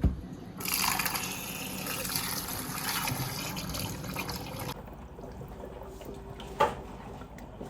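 Kitchen tap running water onto potatoes being washed for about four seconds, then shut off. A sharp knock follows a couple of seconds later.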